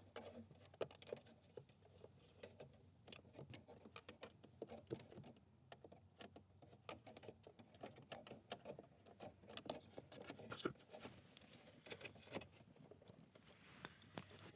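Faint, irregular clicks, taps and light rustling of hands feeding a blend door control cable up behind the dashboard.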